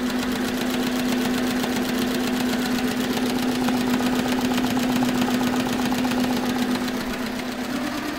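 Fuwei three-head embroidery machine running, embroidering caps: a rapid, even clatter of needle strokes over a steady motor hum.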